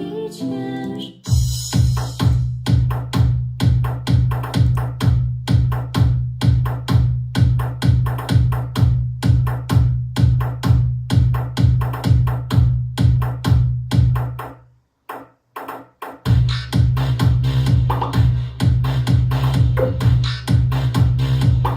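Electronic dance music with a drum-machine beat of about two heavy bass hits a second. It starts about a second in, as a plucked-string piece ends, and drops out briefly about two-thirds of the way through before the beat returns.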